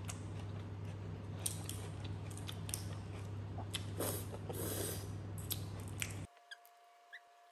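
Close-up eating sounds of crab being eaten by hand: wet lip smacks and sucking sauce off the fingers, with scattered small clicks over a steady low hum. About six seconds in, the sound cuts off suddenly to near silence with a faint steady tone.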